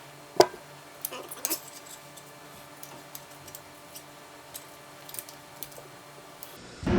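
Small metallic clicks and taps of shifter parts and hand tools being handled during assembly: one sharp click about half a second in, a quick cluster a second later, then scattered faint ticks. A loud steady noise cuts in abruptly right at the end.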